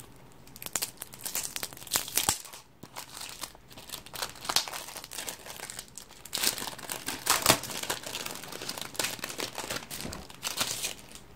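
Paper crinkling and rustling in irregular crackles, close up, as a paper sticker sheet is handled and peeled.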